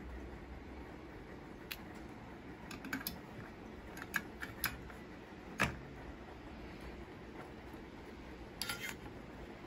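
A scatter of sharp clicks and taps as hard plastic tool handles knock against the bench and are set into a handle holder, the loudest a single knock a little past halfway and a short rattling cluster near the end.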